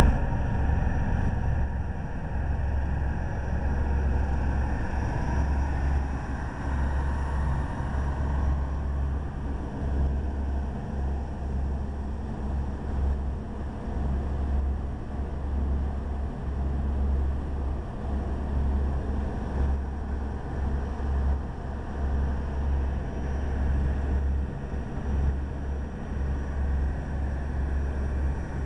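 Fireboat under way: a steady low rumble of its engines and the churning wake, with a hiss of rushing water. The deepest part of the rumble swells and drops irregularly.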